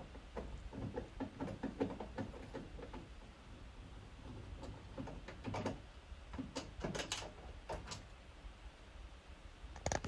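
A screwdriver undoing the screws around the detergent drawer opening of a Bosch/Siemens washing machine's front panel: faint, scattered clicks and small knocks of metal on screw and plastic, with a few sharper clicks in the second half.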